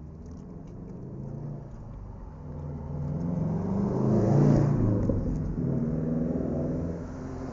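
A car passes close by: its engine and tyre noise grow louder, are loudest about halfway through, then fade away.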